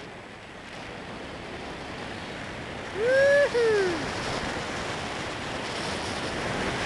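Wind rushing over the microphone of a paraglider in flight, a steady rushing noise. About three seconds in, the pilot lets out a loud two-part "whoo-hoo" whoop that rises and then falls away.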